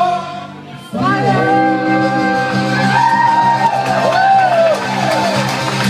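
Live Irish pub band of accordion, fiddle and acoustic guitar playing. The music dips briefly about a second in, then comes back in long held notes with sliding bends over a steady low drone, as a song draws to its close.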